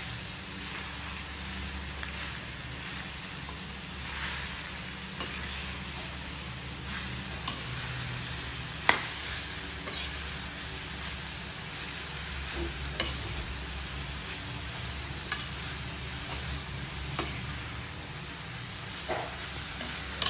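A metal spoon stirring and scraping chopped pork sisig in a metal pan over a steady sizzle, with scattered clinks of spoon on pan. The sharpest clink comes about nine seconds in.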